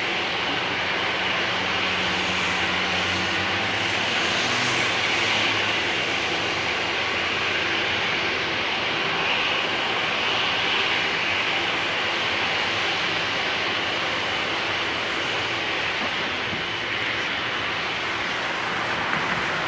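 Airbus A330-300's jet engines running steadily at low taxi thrust as the airliner rolls slowly onto the runway and lines up, before its takeoff run.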